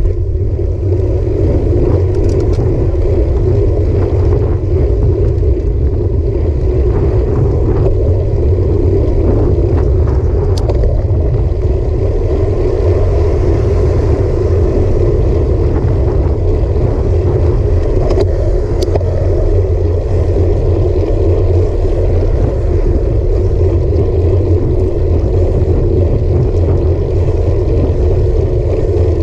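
Wind buffeting the microphone of a handlebar-mounted action camera on a moving road bike, with tyre noise on the road: a loud, steady rumble throughout, with a few faint ticks.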